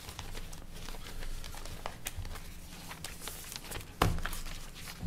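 Paper pages rustling and being handled at a table, with scattered small clicks and one sharp knock about four seconds in, over a steady low hum.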